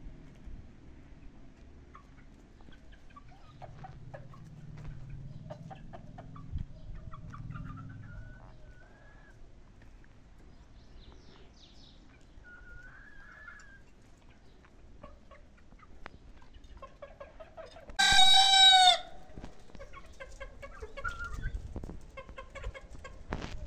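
Fayoumi and baladi chickens clucking softly and scratching, with a few short warbling calls. About three-quarters of the way in, one short, loud crow stands out.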